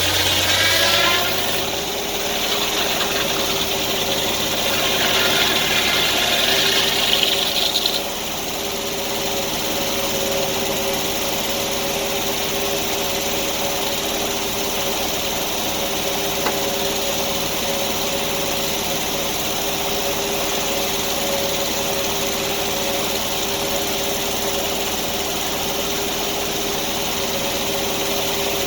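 Sawmill engine running steadily, rising in pitch at the start, while the blade cuts through an oak log with a loud hiss that stops abruptly about eight seconds in; the engine then keeps running steadily.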